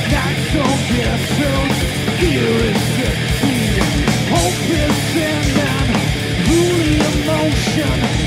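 Live rock band playing loud: a drum kit keeps a steady beat under an electric guitar melody line.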